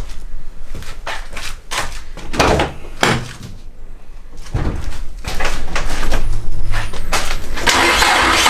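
A few scattered knocks, then from about five seconds in a Nissan SR20DET turbo four-cylinder is cranked and starts up, getting louder near the end. It is being run with its intake on but without the mass airflow sensor.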